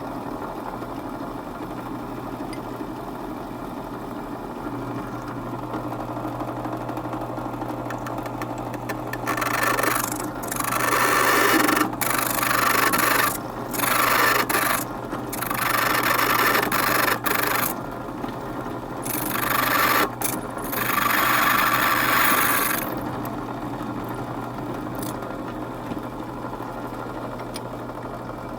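Drill press motor running steadily, with several stretches of loud grating between about nine and twenty-three seconds in as the bit is fed into a steel knife part. The chuck has worked loose, so the bit is slipping rather than cutting cleanly.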